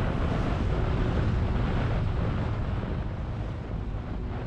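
Wind rushing over the microphone on the deck of a boat under way, with a low, steady rumble from the vessel and water washing past its hull.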